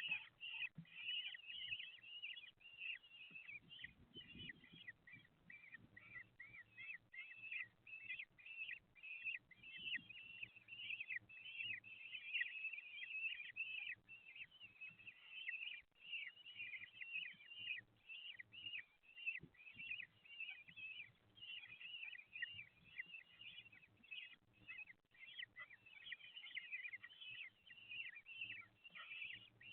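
Common kestrel chicks giving begging calls, a dense, unbroken stream of short high chirps and trills while they are fed.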